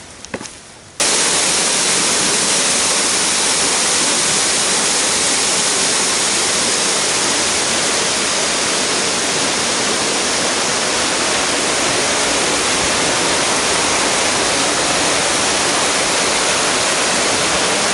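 Waterfall: steady rushing of falling water, starting abruptly about a second in and holding even.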